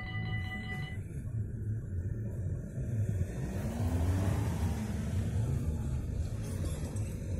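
Low rumble of a yellow NS double-deck electric passenger train at the platform, with a whine that rises and then falls in pitch about four seconds in. A set of steady high tones cuts off about a second in.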